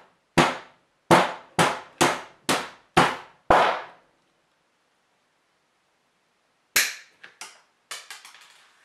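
Hammer striking a steel rivet setter seven times, about two blows a second, each a sharp metallic hit with a brief ring, pressing the burr down onto a copper rivet. After a pause, one sharp click and several lighter clicks follow near the end.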